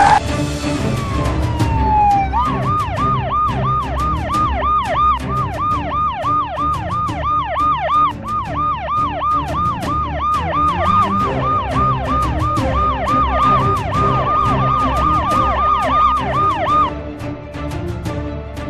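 Emergency vehicle siren: a falling wail in the first two seconds, then a fast yelp rising and falling about four times a second, which stops near the end. Music with a steady beat plays underneath.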